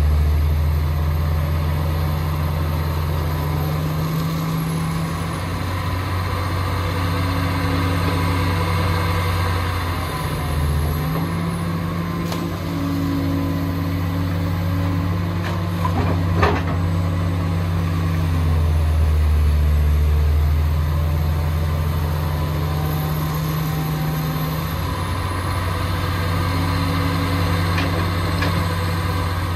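Heavy diesel excavator engine running under load that rises and eases every few seconds as it works, with a faint high whine rising and falling alongside. A single sharp clank sounds about halfway through.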